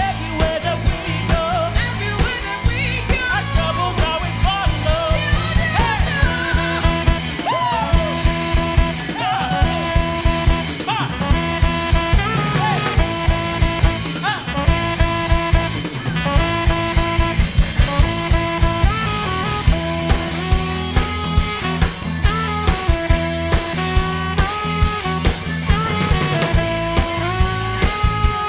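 Live pop-gospel-jazz fusion band playing an instrumental stretch: drum kit and bass keep a steady groove under a lead melody line that glides at first and then moves in held, stepped notes.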